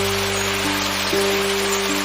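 Slow background music of held low notes changing every half second or so, over a steady hiss.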